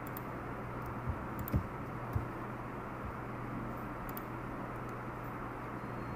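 Steady hiss with a low hum, over which a few faint computer mouse clicks sound, along with three soft low thumps between about one and two seconds in.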